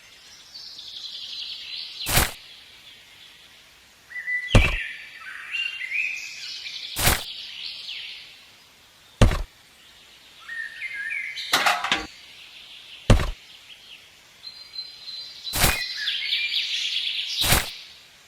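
Birds chirping, with sharp clicks or knocks every couple of seconds.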